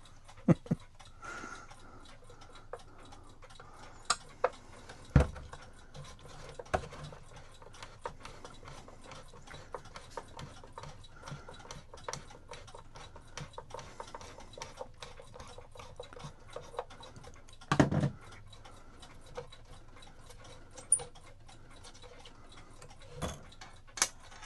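Mechanical clock ticking steadily, with a few louder knocks and clinks from parts and tools being handled during the disassembly of a cuckoo clock.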